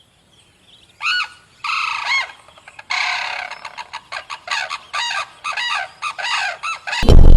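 An animal calling: a few separate calls that rise and fall in pitch, then a quick run of short repeated calls, several a second.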